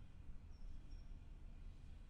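Steady, deep brown-noise rumble of a night harbour ambience, with two faint, short, high chirps about half a second and a second in.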